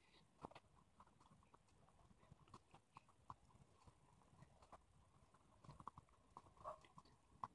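Faint ballpoint pen writing on paper: light, irregular scratches and small taps as letters are formed.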